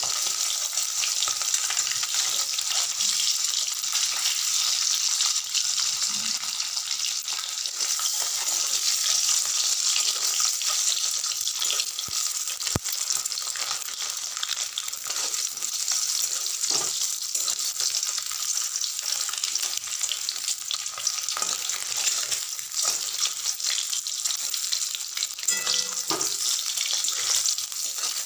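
Boiled eggs frying in hot oil in a metal wok, a steady sizzle. Now and then there are short knocks and scrapes as the metal spatula turns the eggs against the pan.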